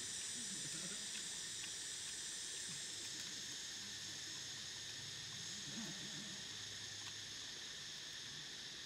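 Steady high-pitched chorus of forest insects, an even drone that runs without a break. Faint low mouth sounds from someone eating come and go beneath it.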